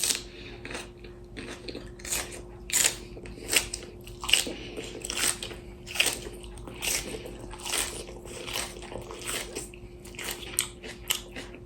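A person eating close to the microphone: repeated crunchy bites and wet chewing, coming irregularly about once or twice a second. A faint steady hum sits underneath.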